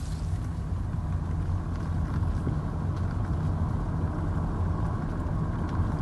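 Steady low rumble of a moving vehicle heard from inside it: engine and road noise while driving.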